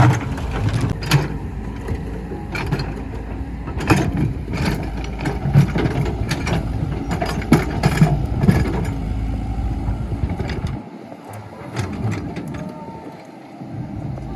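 Excavator working against a large stone: steady machine running with repeated sharp knocks and clanks. The low running sound drops away about eleven seconds in.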